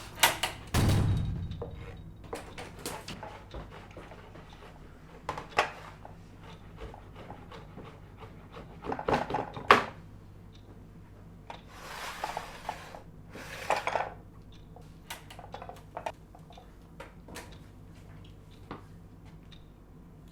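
Dishes, pots and cutlery clattering and knocking, with a heavier thud about a second in and two short rushing noises past the middle.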